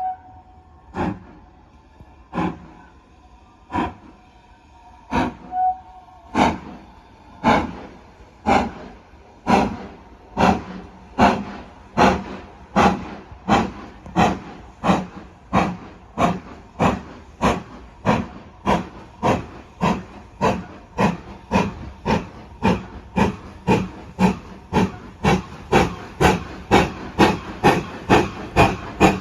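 Steam locomotive 7828, a GWR Manor class 4-6-0, working hard as it gathers speed. Its exhaust chuffs start about one a second and quicken steadily to about three a second.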